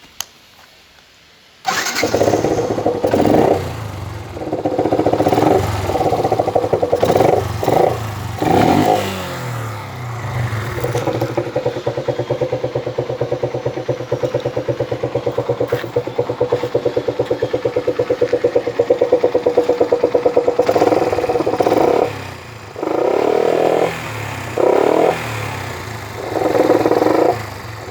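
Yamaha FZ-S motorcycle's single-cylinder engine starting about two seconds in and being revved in several quick blips, its pitch falling back to a steady idle. It idles for about ten seconds, then is revved in short bursts again near the end; the owner likens the sound to a KTM Duke.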